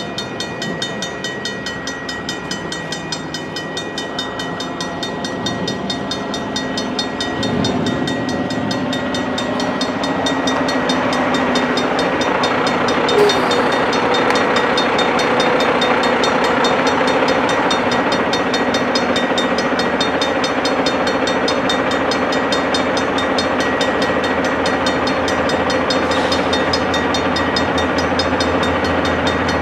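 Two EMD diesel locomotives, a GP38-2W leading and an SD70M-2 behind, hauling a short freight train at track speed and approaching. The engine sound and rail noise grow steadily louder, with one brief sharp click about halfway through.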